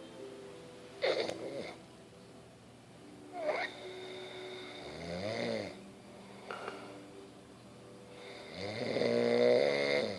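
A man snoring in his sleep, with two long snores about five and nine seconds in, the second the loudest. Short, sharp noises come in between.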